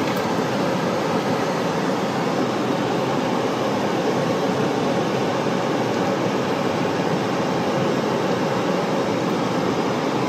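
Steady cabin noise of a car driving: engine and tyre noise heard from inside, even and unbroken.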